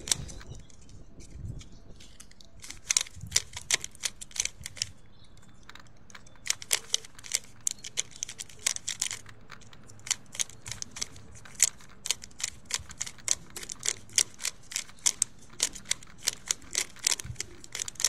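Plastic 3x3 Rubik's cube being turned quickly by hand while being solved: rapid runs of sharp clicks as the layers snap round. The clicks come in spurts, with short pauses between them.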